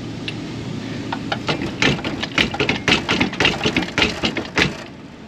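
Metal clunks and rattles as a stuck boat-trailer coupling is worked at on a tow ball, many quick knocks in a burst from about a second in, over a vehicle engine idling.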